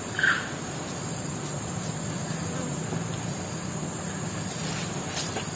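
Steady high-pitched drone of forest insects, with a short louder sound about a third of a second in and a few faint clicks near the end.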